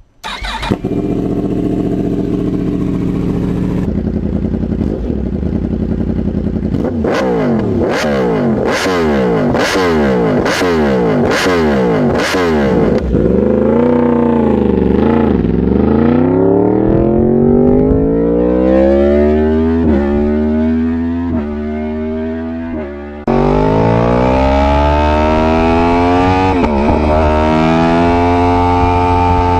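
Yamaha R1 crossplane-crank inline-four engine: idling, then revved sharply in quick repeated blips, then rising and falling through the revs as the bike is ridden. Near the end it cuts abruptly to a steady high-revving run with slow climbs in pitch.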